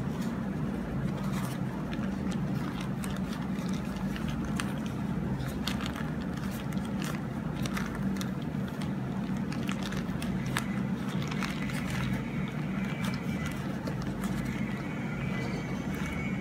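Steady low background hum, with scattered soft clicks and rustles as a drawstring pouch is untied and opened and a microphone cable is pulled out of it.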